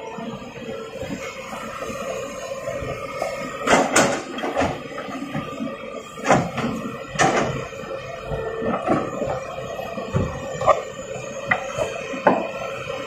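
Hitachi EX200 hydraulic excavator running with a steady hum while its bucket digs in rocky soil. Stones knock and scrape against the bucket at irregular moments, loudest around four and seven seconds in.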